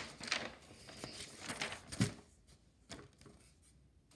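Sheets of paper being handled on a table: scattered rustles and light knocks, the loudest a dull thump about two seconds in, fading to quieter rustling near the end.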